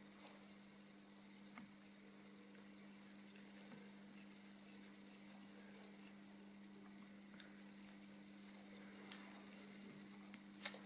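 Near silence: a steady low hum, with a few faint clicks, the loudest near the end.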